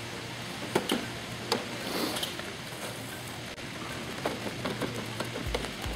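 Wood-chip mulch crunching and crackling under a child's plastic tricycle wheels and feet, with scattered sharp clicks, two of them stronger within the first two seconds.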